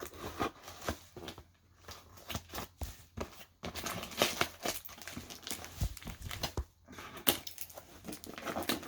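Packing tape being pulled and torn off a heavily taped cardboard box, crinkling and ripping in a string of short, irregular bursts.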